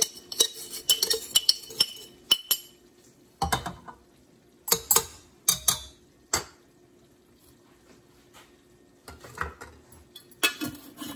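Spoon and spatula clinking and scraping against a stainless steel mixing bowl and a jar as dry ingredients are measured in. Quick clinks come first, then a few separate knocks, a quiet pause of a few seconds, and another run of clinks near the end.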